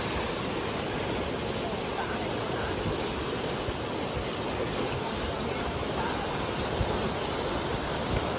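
Swift mountain stream rushing over rocks through a narrow stone channel: a steady churning of white-water rapids.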